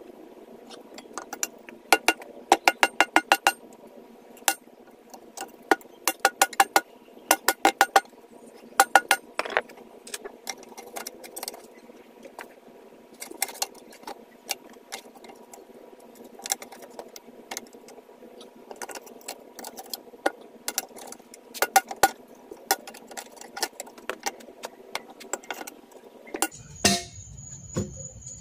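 Bursts of quick, sharp metallic clicks that ring briefly, coming in clusters of several strikes, metal striking or rattling against metal. Near the end they give way to a steady high-pitched tone.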